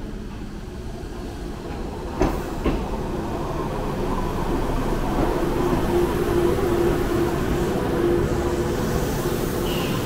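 Train running: a steady rumble and hum that grows slowly louder, with two sharp clicks a little after two seconds in.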